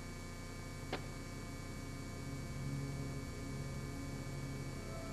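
Steady mains hum on an old VHS television recording, with a single sharp click about a second in. Low, soft notes of background music come in about halfway through.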